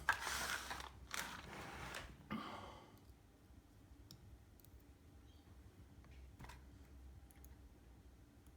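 Rustling, shuffling handling noise for about three seconds as a small bench lathe is turned around and handled, then a few faint, scattered metal clicks as small screws holding its rear cover are worked loose.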